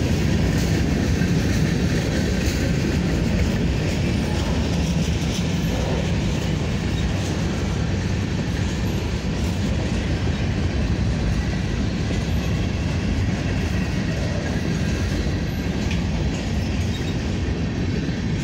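Covered hopper cars of a slow freight train rolling past, a steady noise of steel wheels on the rails with a few faint clicks.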